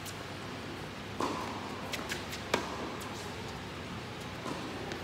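Tennis ball struck by racket strings and bouncing on a hard court during a rally: several sharp pops, the loudest about two and a half seconds in, ringing in a large covered hall over its steady background noise.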